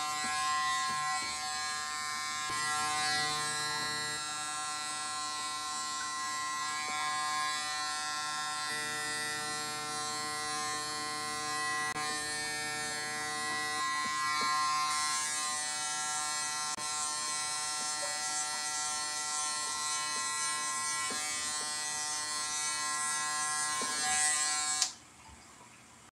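Corded electric hair clippers running with a steady buzz as they are worked over the hair, switching off near the end.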